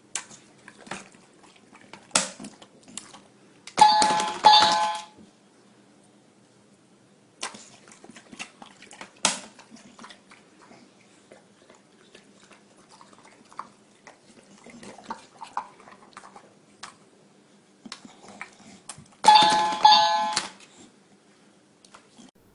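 A push-button electronic pet bell plays a two-note ding-dong chime twice, about four seconds in and again about fifteen seconds later, when the bulldog presses it. Between the chimes come scattered smacks and clicks of the dog eating watermelon pieces.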